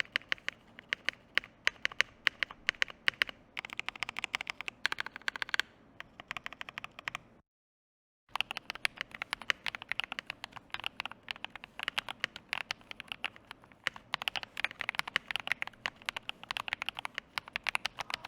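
Fast typing on a modded Akko PC75B Plus mechanical keyboard, with swapped switches and PBT keycaps on a polycarbonate plate: a steady stream of keystroke clacks, broken by a short silent gap a little before halfway.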